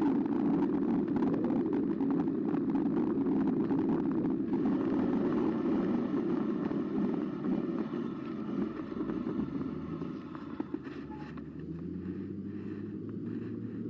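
Carbo X e-bike riding: a steady rumble of drive and tyre noise with fine rattles from the bike. It eases off after about ten seconds, and a low hum comes in near the end.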